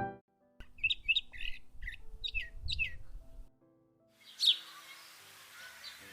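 Small birds chirping: a quick run of short high chirps, then after a brief gap a few more scattered chirps over a faint outdoor hiss.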